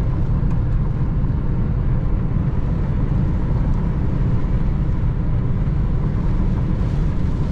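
Steady road noise of a moving car heard inside its cabin: engine and tyres on a wet road, strongest in the low end.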